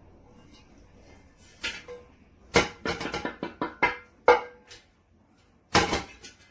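A quick run of sharp clinks and knocks from hard objects, some ringing briefly, then one more knock about a second later.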